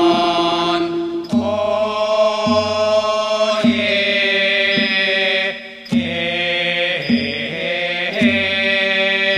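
Thai royal barge chant (kap he ruea), sung in long drawn-out notes that slide from one pitch to the next, over a regular beat struck a little more than once a second.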